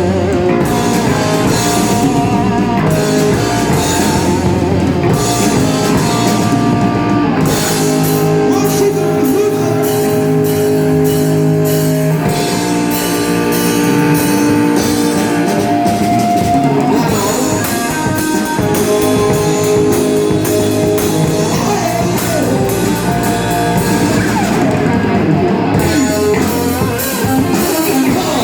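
Rock music with electric guitar, drum kit and singing.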